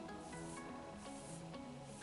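Quiet background music with a simple stepping melody, over a soft rubbing of fingers working through wet curly hair to define the curls.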